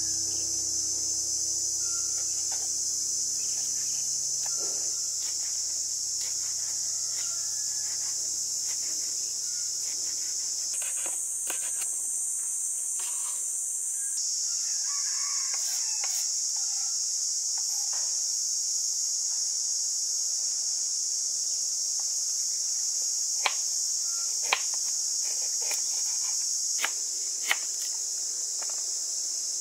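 Insects buzzing in a steady high-pitched drone. Near the end, a chef's knife taps sharply four times on a wooden cutting board while chopping.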